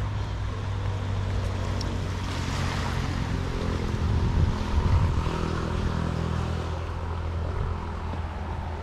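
Motorbike engine running steadily, with a louder low rumble about four to five seconds in.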